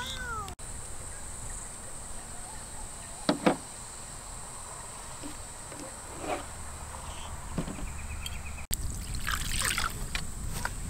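Water poured from a plastic bottle onto raw fish fillets in a bowl, splashing and trickling for about two seconds near the end, which is when fish fillets get rinsed. Before that comes a low outdoor background with two sharp knocks about a third of the way in.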